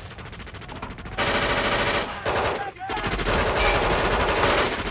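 Rapid automatic gunfire from a film shootout. It starts suddenly about a second in, breaks off briefly just past the middle, then resumes.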